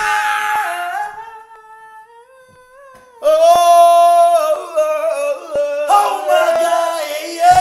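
Men singing out long, wavering held notes together. A first note fades away in the first second, then after a short pause the singing starts up again about three seconds in and carries on to the end.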